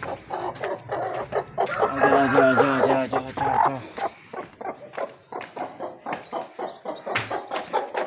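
Mother hen clucking with low, throaty calls, loudest about two to four seconds in, over a run of quick clicks and scratches.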